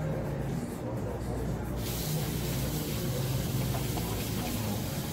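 A steady hiss that starts suddenly about two seconds in and keeps going, over a constant low hum.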